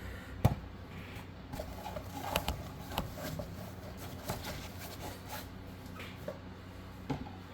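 Hands handling model-train packaging: the foam-lined plastic clamshell and box, with scattered light clicks, taps and rubbing, the sharpest knock about half a second in.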